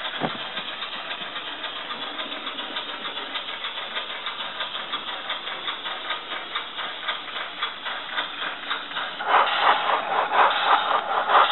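OKsound V4 DCC sound decoder in a Hornby Clan Class model steam locomotive playing steam-engine exhaust chuffs through a small speaker in the tender as the model runs. The beats come in an even rhythm, getting louder about nine seconds in.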